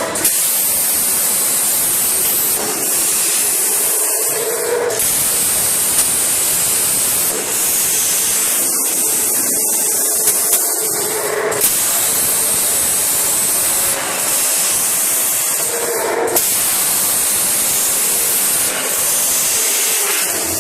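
CNC drilling machine with a rotary fourth axis working on square tubes: a steady high hiss that shifts in character about every two and a half seconds as the machine moves through its cycle, with a few short clicks.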